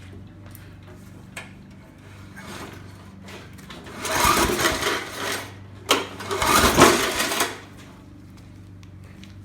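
Two pulls on the recoil starter cord of a Briggs & Stratton Classic 3.75 HP mower engine, each a second or so of whirring as the engine spins over without firing. The spark plug is out and held against the block for a spark check.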